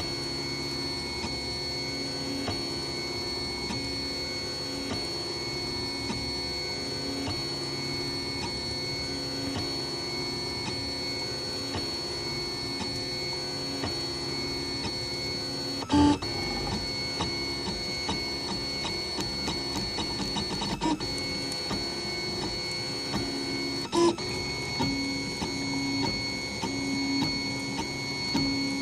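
3D printer running, its stepper motors giving steady whining tones that shift in pitch as the moves change. Two brief louder knocks stand out, about eight seconds apart, past the middle.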